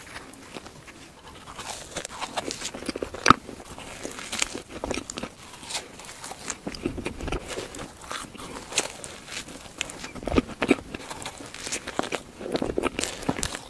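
Close-miked eating sounds of a soft, powdered cream-filled donut being torn open and bitten: irregular small smacks and clicks of chewing.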